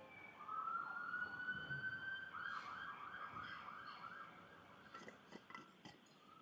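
A faint emergency-vehicle siren: a single wailing tone that rises, warbles rapidly for about a second and a half, then holds steady and fades away.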